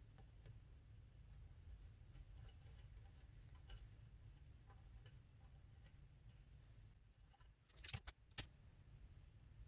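Near silence: faint room tone with scattered light ticks, and a quick cluster of two or three sharp clicks about eight seconds in.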